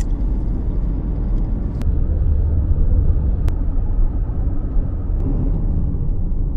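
Car driving on the open road, heard from inside the cabin: a steady low rumble of engine and tyre noise, with two faint ticks.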